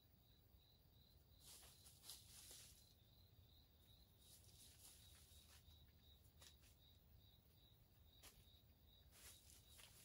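Near silence: a faint insect chirping in a steady pulsed rhythm, about three chirps a second, with a few soft rustles and light ticks.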